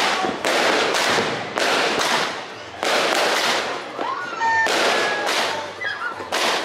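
Firecrackers going off in a rapid, irregular series of sharp bangs, roughly two a second, each with a short echoing tail, with a brief lull about three and a half to four and a half seconds in.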